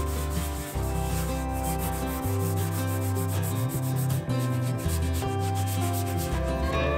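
A gloved hand with a cloth rubbing linseed-oil-and-beeswax finish into cherry wood in quick back-and-forth strokes, over background music with held notes and a moving bass line.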